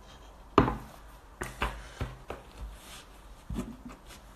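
A handful of short knocks and handling bumps close to a handheld phone's microphone, the loudest about half a second in, the rest scattered over the next three seconds.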